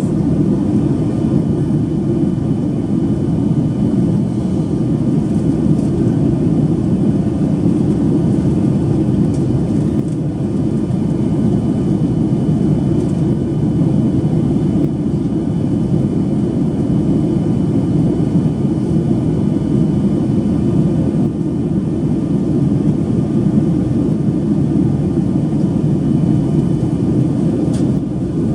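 Steady cabin noise of a Boeing 737-800 in flight on its descent: a dense low rumble of CFM56 engines and airflow, with faint steady whining tones above it.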